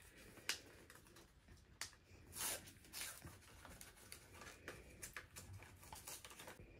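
Paper envelope being opened by hand: faint paper rustling and crinkling, with a short, louder rip about two and a half seconds in.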